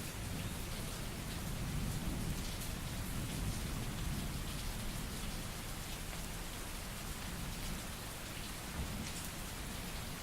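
Steady rain falling, a continuous hiss with scattered drop ticks. A low rumble of distant thunder sits under it in the first few seconds and fades away.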